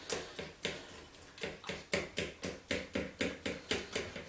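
Pancake batter being beaten by hand in a mixing bowl: a steady run of quick taps, about four a second, as the utensil knocks against the bowl while the lumps are beaten out.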